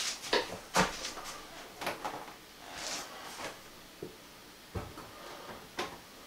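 Knocks and clatters of a plastic utility sink being lifted and handled, a handful of separate bumps with the loudest a little under a second in and a short hiss about three seconds in.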